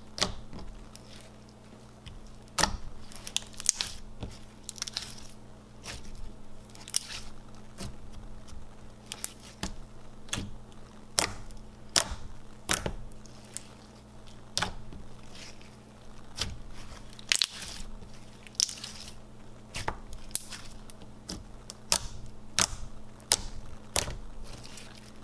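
Thick clear slime with icy snow pieces being poked and pressed by fingertips, giving sharp crunchy pops and crackles at irregular intervals, about one a second.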